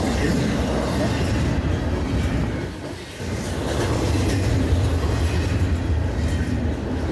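Florida East Coast Railway freight train rolling past, its wheels clacking steadily over the rails with a deep rumble. The level dips briefly about three seconds in.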